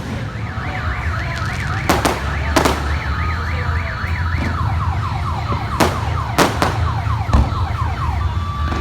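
Fireworks bursting with sharp bangs at irregular intervals, over a car alarm. The alarm warbles rapidly up and down, switches to quick falling chirps about halfway through, then to steady alternating tones near the end.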